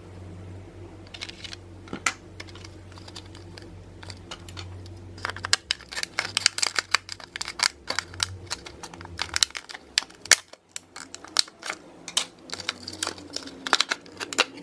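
Scissors snipping through a stiff plastic blister pack, and the clear plastic crinkling and crackling as it is pulled open: a few sharp clicks at first, then a dense run of crackles from about five seconds in.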